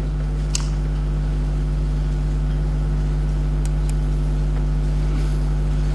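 Steady low electrical mains hum, with a faint click about half a second in.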